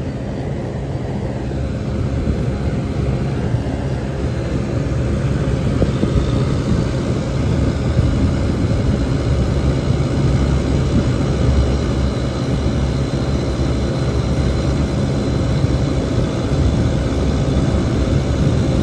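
Bard wall-mount air-conditioning unit's compressor and condenser fan running, heard close up as a steady low hum that builds slightly over the first couple of seconds after restarting.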